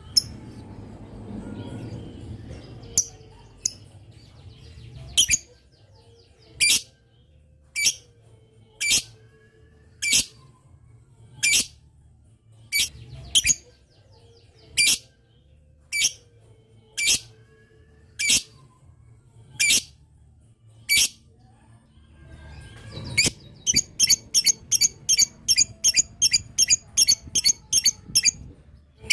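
Lovebird giving sharp, high-pitched single shrieks about one every second, then, from about two-thirds of the way in, breaking into a fast, even run of calls about four or five a second: the long rapid chatter that keepers call "ngetik" (typing).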